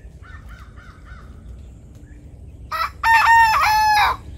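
Young black rooster crowing once, a loud cock-a-doodle-doo of about a second and a half near the end, after a few soft short calls near the start.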